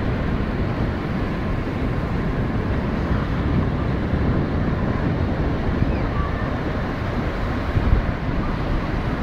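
Wind blowing across a phone's microphone: a steady rush of noise, heaviest in the low end.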